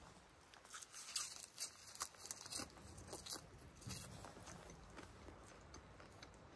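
Faint crisp snapping and tearing of a wild plant's stems and leaves being picked by hand, as a quick cluster of clicks between about one and four seconds in.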